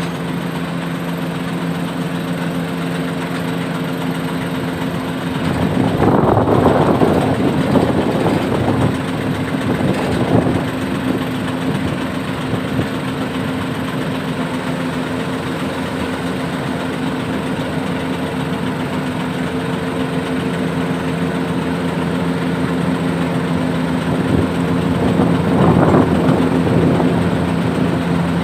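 Heavy diesel engine idling steadily, with two louder, rougher surges of noise, one about six seconds in and one near the end.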